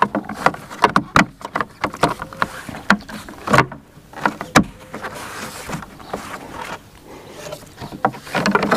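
Hard plastic third-brake-light housing being handled and snapped back onto a Jeep Wrangler JL tailgate: irregular clicks and knocks, sharpest and most frequent in the first half, then quieter scraping and handling with a few softer clicks.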